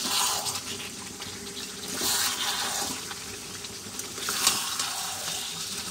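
Chicken curry sizzling and bubbling in a metal kadai on a gas stove, an uneven hiss that swells and fades a few times, with faint ticks.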